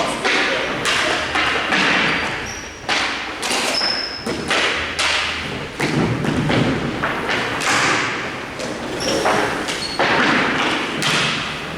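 Floor hockey play: repeated sharp knocks and thuds at irregular intervals, echoing in a large hall, with a few short high squeaks.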